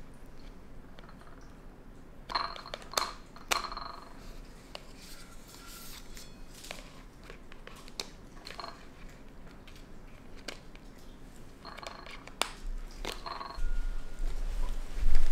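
Plastic spoon scraping and squeaking inside a plastic deli cup while hornworms are scooped out, in two short spells of scrapes and light clicks. Low bumps and handling noise near the end.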